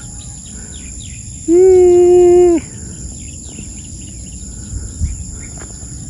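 A person's loud shouted call, held on one pitch for about a second, starting about a second and a half in. Underneath, insects keep up a steady high buzzing, with faint bird chirps.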